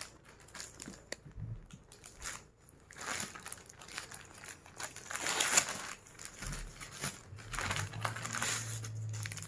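Parcel packaging crinkling and rustling as it is unboxed, in several bursts with small clicks in between.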